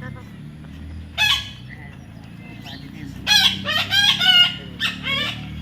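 Parrot calling: one short call about a second in, then a rapid run of loud calls from about three seconds in, and one more near the end.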